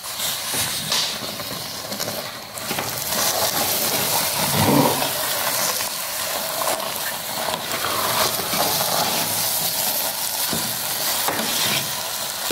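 A metal spoon stirring and scraping thick wheat-flour and jaggery batter in a metal pot while freshly added oil sizzles in it over the flame. One louder thud-like stir comes about four and a half seconds in.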